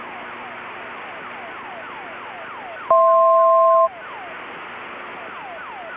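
Practice emergency locator transmitter (ELT) signal heard over the aircraft radio: a repeating falling-pitch warble, about three downward sweeps a second, over a steady hiss. About three seconds in, a loud steady two-tone beep sounds for about a second.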